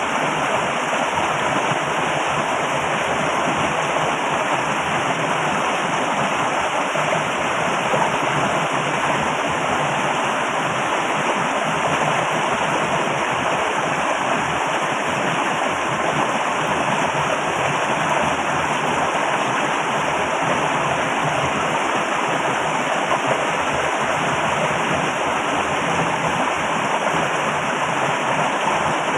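Flowing water rushing steadily and very loud, an unbroken noise with no pauses or splashes standing out.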